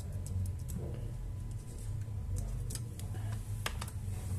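Light, irregular clicks and taps of a wire and fingers on a welding machine's circuit board, over a low steady hum.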